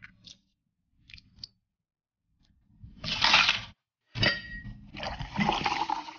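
Drink-making sounds at a glass: a loud pouring rush about three seconds in, a sharp clink with a short ring just after four seconds, then liquid poured over ice near the end.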